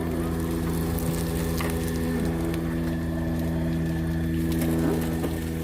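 A motor running steadily with a low, even hum, a few faint clicks over it.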